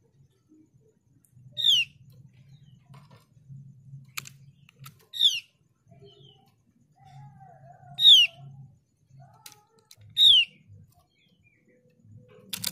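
Female Javan grey-throated white-eye (opior jawa) calling: four short, clear notes, each sliding downward, a few seconds apart. It is the female's call to a male, used as a lure to get males singing. A few faint clicks fall between the calls.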